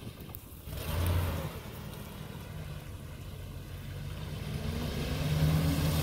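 Ford F-150 pickup's engine pulling the truck into a deep, flooded trail puddle: a short rev about a second in, then the engine note climbs slowly and gets louder near the end as the truck pushes into the water.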